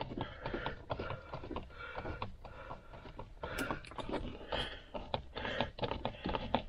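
Plastic seat-side trim and power seat switch being handled and fitted back on: many light clicks, taps and short scrapes of hard plastic.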